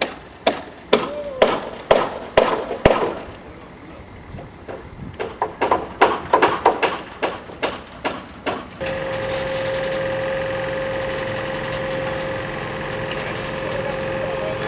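Sharp hammer blows on timber, about two a second, in two runs separated by a short pause, as carpenters fix roof trusses. About nine seconds in the sound changes to a steady engine drone with a held whine, from the truck-mounted crane hoisting a roof truss.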